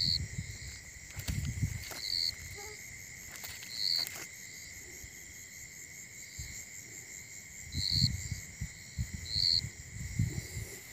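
Night insect chorus: crickets trilling steadily at two pitches, with a short higher chirp repeating every second or two. Low rustling and bumps come and go as the plastic-mesh frog trap is handled.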